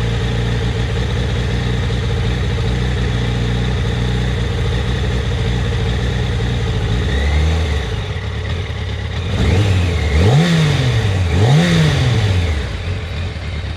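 Yamaha FZ1's inline-four engine running warm. It holds steady at a slightly raised speed, drops to a low idle about halfway through, is revved up and back down twice in quick succession, then settles back to idle. The owner says the warm engine idles rough and runs jerky at low rpm, with the ignition coils testing in spec and a cause he has not found.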